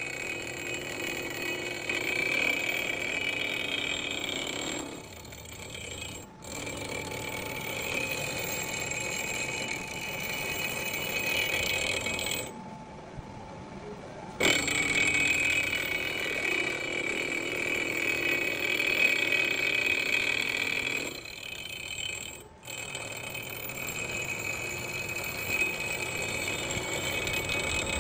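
Milling machine end mill cutting into a steel crankshaft counterweight, a steady grinding cut with a high singing tone, trimming the counterweight to balance the crank. The cutting drops away briefly three times.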